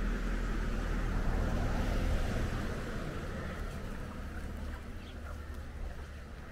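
Low rumble of a passing vehicle, swelling in the first couple of seconds and then slowly fading away. A few faint, short bird calls near the end.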